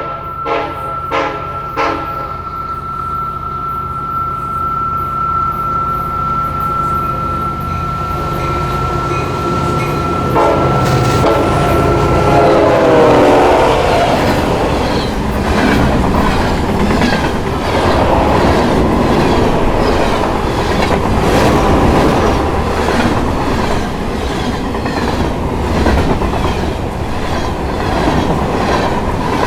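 A train approaching and passing, growing louder, with a steady high tone for roughly the first twelve seconds. The horn sounds with a slight drop in pitch as it passes, then the cars roll by with a rhythmic clickety-clack of wheels over the rail joints.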